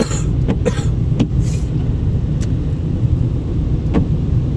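Car cabin noise while driving: a steady low rumble of road and engine. Several short, sharp clicks or knocks come in the first second and a half, and one more about four seconds in.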